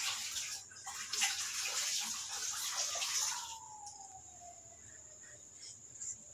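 A dog mouthing and biting a plush doll on a fabric armchair: rustling and scratching with scattered clicks for about three and a half seconds, then quieter. A faint tone slides down in pitch near the middle.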